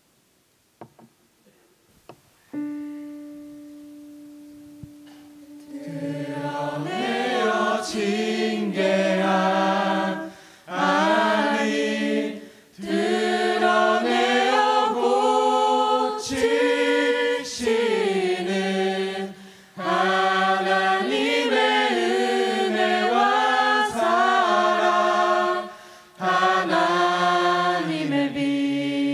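Mixed choir singing a Korean worship song in phrases, with short pauses between lines. Before the singing there is a moment of near silence, then a single note rings and fades.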